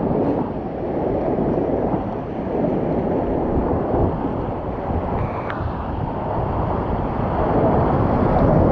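Rushing whitewater as a kayak runs a river rapid, with wind noise on the microphone: a steady, deep rush with no break.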